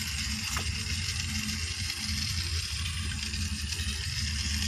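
Battery-powered toy steam locomotive running around plastic track: a steady small-motor hum with the whirr of its gears and wheels.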